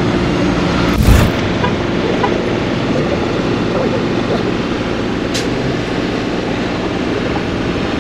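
Heavy rotator wrecker's diesel engine running steadily with a constant low hum, with a brief loud thump about a second in.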